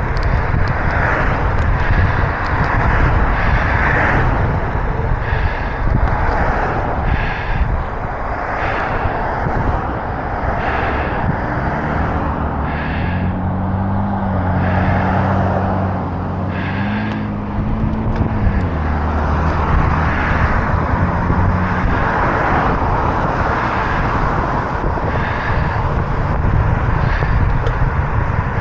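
Wind rushing over the microphone of a moving bicycle, with road traffic around it. From about 12 to 19 seconds in, a passing motor vehicle's engine adds a low hum that shifts in pitch.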